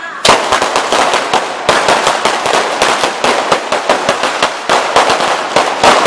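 A traca, a long string of firecrackers laid on the street, going off: after a moment's pause a dense, uneven run of sharp bangs starts and keeps going in rapid succession, several cracks a second.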